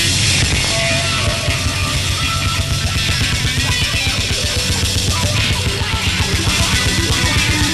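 Loud, dense band music with a fast, driving beat.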